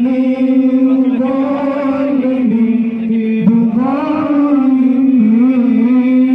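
A voice chanting in long, drawn-out held notes, the pitch rising and falling slowly, with a short dip about three and a half seconds in.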